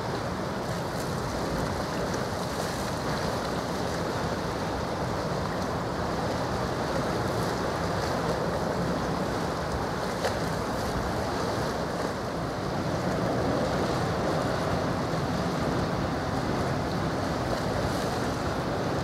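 Steady wash of sea water with wind noise on the microphone, and a faint low hum underneath.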